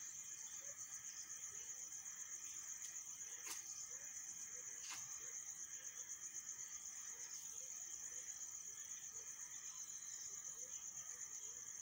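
Faint, steady high-pitched trill of crickets chirping, with two light clicks about a third of the way in from the plastic syringe and vial being handled.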